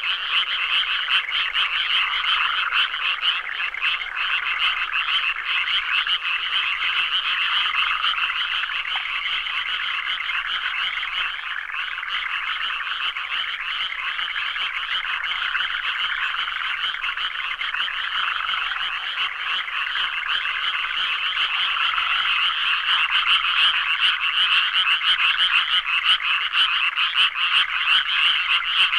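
A dense chorus of many frogs calling at once, rapid overlapping croaks and trills that never pause, swelling a little louder over the last several seconds.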